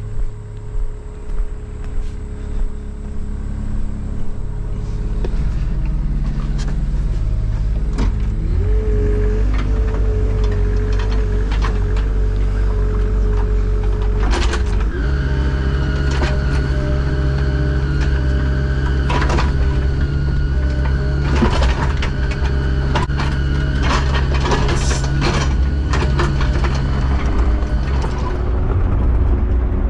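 Engine of an earthmoving machine working while it backfills a pit. The engine note rises about eight seconds in and steps up again about halfway through as it takes load, with scattered metal knocks and clanks.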